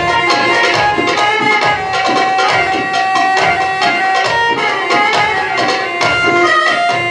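Live Egyptian shaabi band music: a sustained accordion and keyboard melody over a steady hand-drum rhythm.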